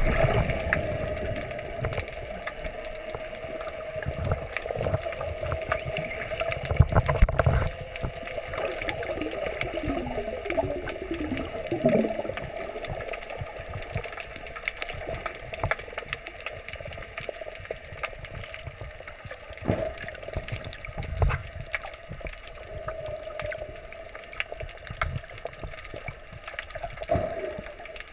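Underwater sound heard through a GoPro housing: muffled water sloshing and uneven low knocks from the swimmer's movements, over a steady hum, with a few sliding tones about ten seconds in.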